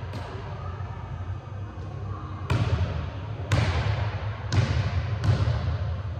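Basketball bouncing on a hardwood gym floor: four loud, sharp bounces about a second apart in the second half, each ringing on in the big hall. A steady low hum runs underneath.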